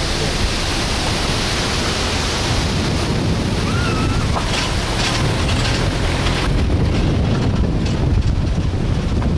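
Wind buffeting the microphone: a loud, steady rushing noise with a heavy low rumble. The high hiss thins out about two-thirds of the way through.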